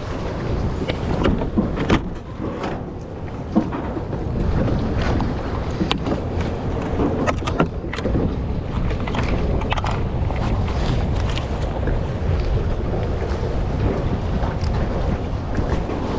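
Wind buffeting a microphone over a steady low rumble, broken by frequent sharp knocks.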